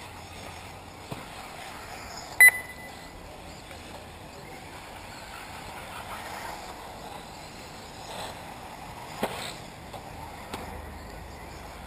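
One short, high electronic beep about two and a half seconds in, over a steady low background, with a few faint clicks later on.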